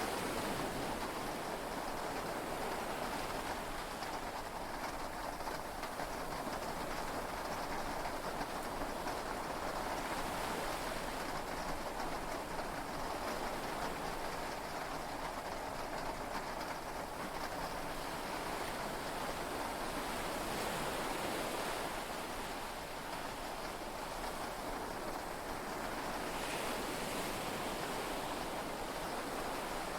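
Heavy rain and sea waves heard from inside a yacht's cabin: a steady, dense hiss that swells gently now and then.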